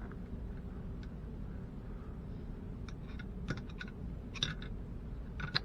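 Light clicks and taps of small metal parts being handled and fitted into a rifle's pistol grip: a few scattered clicks from about halfway through, over a low steady hum.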